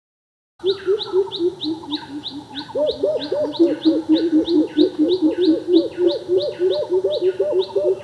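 Greater coucal calling a fast series of deep coop notes, about three to four a second, starting abruptly about half a second in. Another bird's high, falling notes repeat over it about three times a second.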